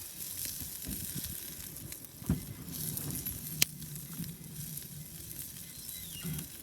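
Food sizzling in a pan over a wood fire, a steady hiss with fine crackles. A dull knock a little over two seconds in and a sharp click about a second later.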